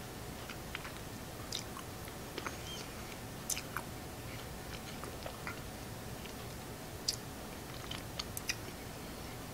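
Faint wet mouth clicks and smacks as a mouthful of powdered collagen supplement is worked around the mouth, the powder gathering the saliva and gunking up. A few sharper clicks stand out about three and a half and seven seconds in, over a steady low room hum.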